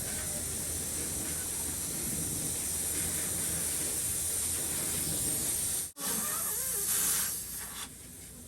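Compressed air hissing steadily from an air line while a 12R22.5 tubeless truck tyre is being inflated. About six seconds in it breaks off for a moment, then comes back in a louder burst that stops abruptly near the end.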